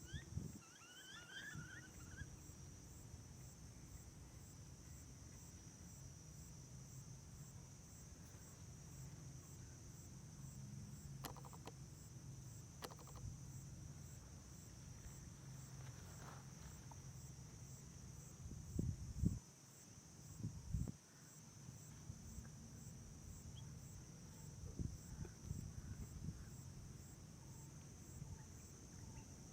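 Steady high-pitched insect chirring, like cicadas or crickets, with a few short bird chirps in the first couple of seconds and some dull low thumps past the middle.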